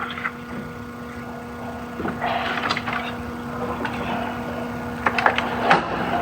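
Scattered clicks and knocks of hand tools and parts being handled, with a couple of short rustling stretches, over a steady low hum.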